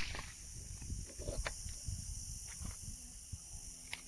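The tail of a .22 LR pistol shot fading away, then a quiet outdoor background with a steady high hiss and a few faint clicks.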